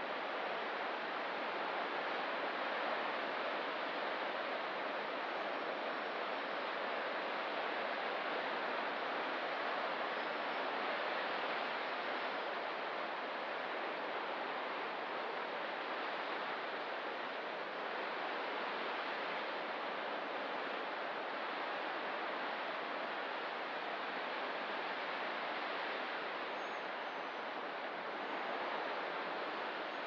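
Ocean surf washing steadily against a rocky coast, an even hiss of waves with no single break standing out.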